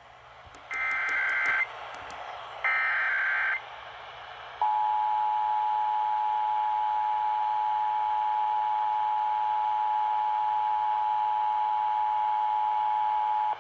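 Emergency Alert System header: two short bursts of shrill SAME digital data screech, then the EAS two-tone attention signal, a steady dual-pitch tone held for about nine seconds before cutting off.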